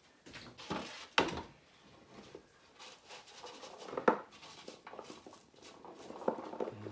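Scattered knocks and light clatter of dishes and bowls being handled while cranberries are set out for sorting by hand. There are sharper knocks about a second in and again about four seconds in, with soft rustling and small clicks between them.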